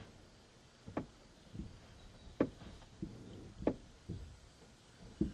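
Dull knocks and thumps at uneven intervals, about one a second, as a man shoves on the front of a Nissan Sentra to roll it backwards, heard from inside the car. The two loudest knocks fall in the middle.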